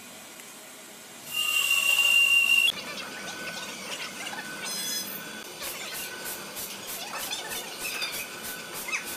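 A loud, high-pitched metallic squeal lasting about a second and a half. Then an overhead crane hoists a large log, with rattling and a short beep repeating about once a second.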